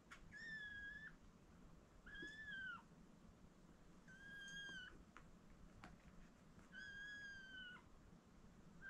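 Four-week-old kittens mewing: four faint, high, thin mews, each under a second long, about two seconds apart.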